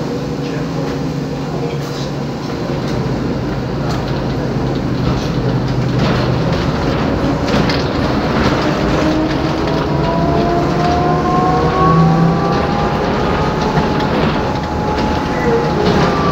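Interior ride noise of an Iveco Socimi 8820 trolleybus: a steady rumble with rattles and knocks. From about halfway in, the electric traction motor's whine rises in pitch as the trolleybus accelerates, and it starts rising again near the end.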